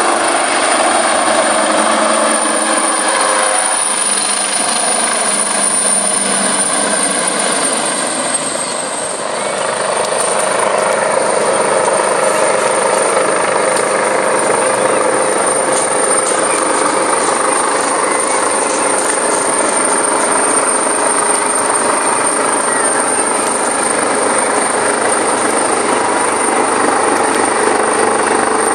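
Coastguard search-and-rescue helicopter hovering low over the sea: steady rotor and turbine noise with a constant high-pitched whine. It dips briefly in loudness about eight seconds in.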